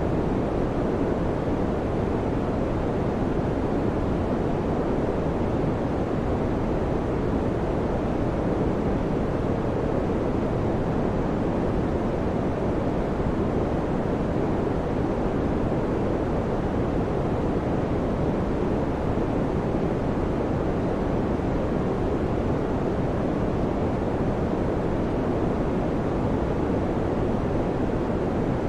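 Electric fan running steadily: an even, unbroken whoosh of moving air, deepest in the low tones.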